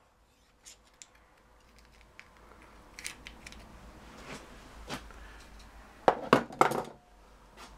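Small metal parts clicking and clinking as a slide hammer puller and the pulled-off ignition chopper rotor are handled, with a short cluster of louder metal knocks about six seconds in.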